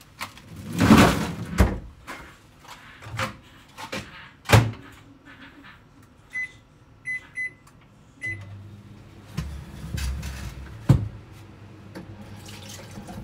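Knocks and clatter of containers being handled, then four short beeps from a microwave oven's keypad about six seconds in, after which the microwave starts up with a steady low hum.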